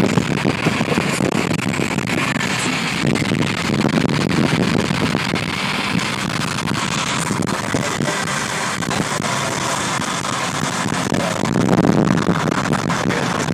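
Steady road and wind noise of a car driving along, heard from inside the car.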